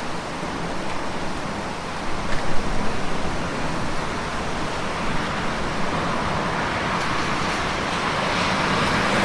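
Steady rainfall hiss, swelling gradually toward the end.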